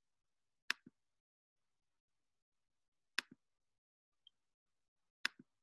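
Three clicks of a computer mouse button, a couple of seconds apart. Each is a sharp press followed at once by a softer release.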